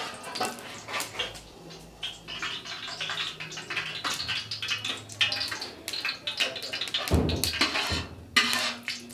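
Metal spoon scraping and clinking against a steel pot while stirring green cardamom pods in heating oil: irregular scrapes and ticks, with a duller knock about seven seconds in.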